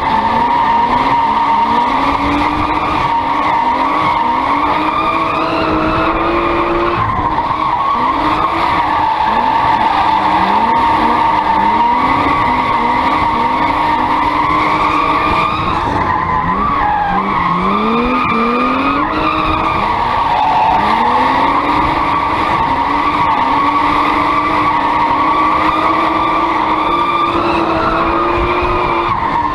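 BMW E36 318 Compact with a swapped-in 2.8-litre straight-six, drifting: the engine revs climb and drop again and again while the rear tyres squeal in a steady high tone.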